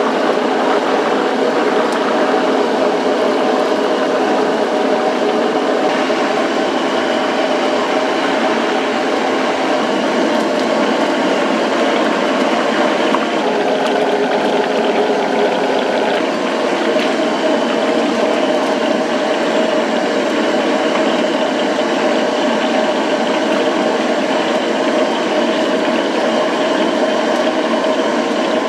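Green onion pieces deep-frying in a wok of hot oil, a steady sizzle and bubbling over a constant mechanical hum from the kitchen.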